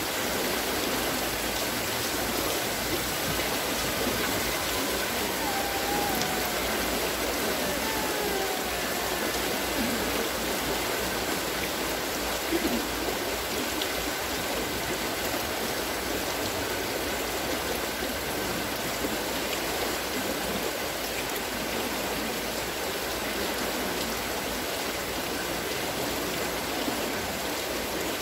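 Water pouring and splashing steadily from the buckets of a turning wooden water-scooping wheel.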